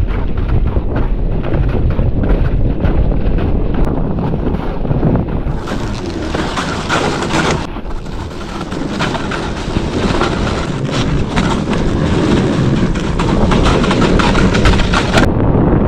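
Loud wind rushing over the microphone during a ride on a MoonBikes electric snow bike. A brighter hiss swells about six seconds in and cuts off about two seconds later.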